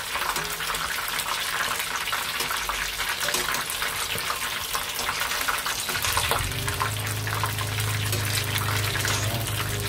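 Battered squid rings deep-frying in hot oil: a steady crackling sizzle. A steady low hum comes in about six seconds in.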